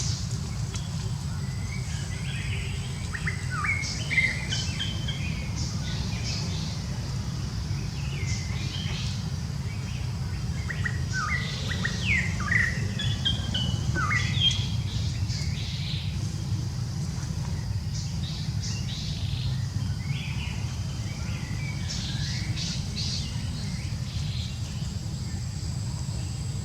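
Short, high-pitched chirping calls with quick downward slides in pitch, coming in three clusters, over a steady low rumble.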